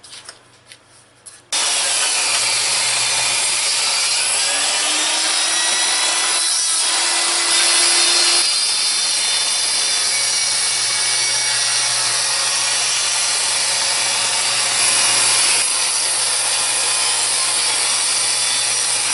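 Benchtop table saw running and ripping a small log lengthwise, the blade cutting through the wood with a loud, steady noise that starts suddenly about a second and a half in.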